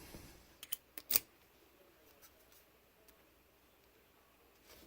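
A few short, sharp clicks of small metal parts and tools being handled while a padlock is taken apart, the loudest about a second in, then only faint handling sounds.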